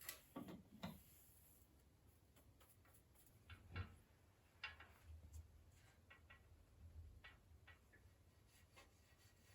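Near silence broken by faint, scattered small clicks and light knocks, as of objects being handled. The clearest is a knock a little under four seconds in.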